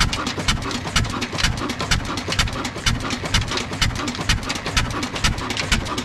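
Old black stationary diesel engine with a large flywheel, running slowly and steadily: a regular beat of low thuds about twice a second, with sharp metallic clicks between them.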